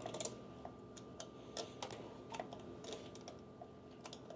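Light, irregular clicks and taps of hard plastic and metal computer parts being handled while an AIO cooler's mounting bracket is fitted onto an AM4 CPU socket.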